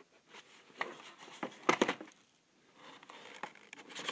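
A small pointed tool scraping and prying at the stuck end flap of a cardboard toy box: irregular scratching, clicking and crackling of cardboard, loudest a little under two seconds in.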